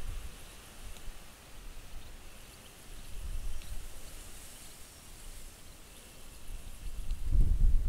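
Summer outdoor ambience: faint, high insect chirping and a few short bird chirps, with wind rumbling on the microphone at the start and again near the end.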